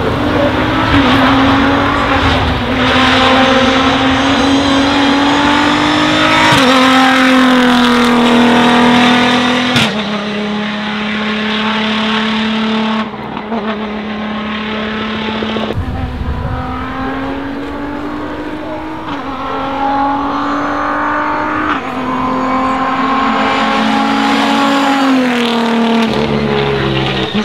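Toyota GR DKR Hilux's 3.5-litre twin-turbo V6 at full throttle, its revs climbing and dropping back through several gear changes as the truck accelerates past.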